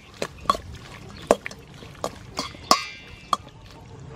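A spoon stirring seasoned raw squid in a stainless steel bowl: irregular clinks of the spoon against the bowl, about seven, one near the end ringing briefly, between the soft sounds of the wet squid being turned.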